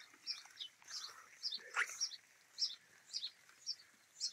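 Sparrows chirping: a run of short, high chirps, about three a second.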